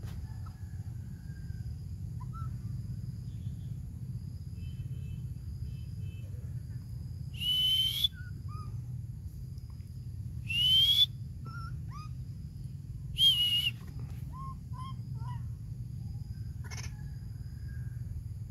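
Baby macaque giving three high-pitched cries a few seconds apart, each under a second long and rising slightly in pitch. Faint short chirps and steady insect-like tones sound in the background.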